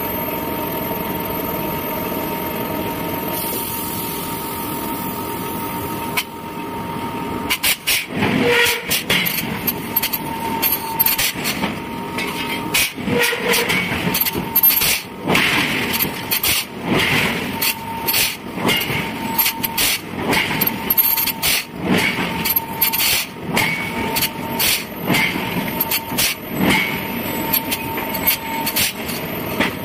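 Forging-shop machinery running with a steady hum. From about seven seconds in, loud, sharp metal blows and clanks start and go on at an uneven pace, roughly one or two a second.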